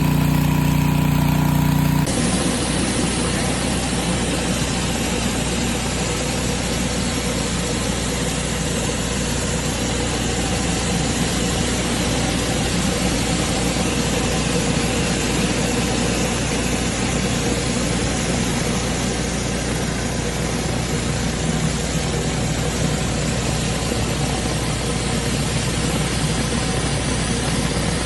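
Pressure washer running steadily: a constant engine note under a loud hissing spray, with an abrupt change in the sound about two seconds in.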